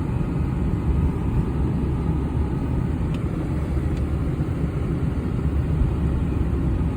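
Steady low rumble of a truck on the move, with engine and tyre noise heard from inside the cab.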